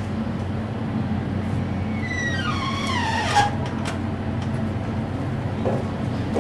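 A door handle and latch click twice, sharply, over a steady low hum. Just before the clicks, a squeal falls in pitch.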